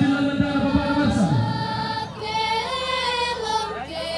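Toraja funeral mourners chanting together in a slow ma'badong funeral chant, with long held notes. The low voices slide down about a second and a half in, then higher voices take up a held note.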